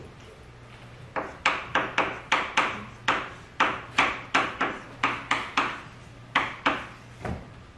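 Chalk writing on a blackboard: a run of sharp, irregular taps and short scrapes, about two to three a second, starting about a second in.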